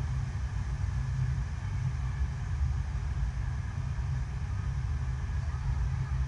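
Pumped water rushing over the riding surface of an artificial stationary-wave surf machine: a steady low rumble with no breaks.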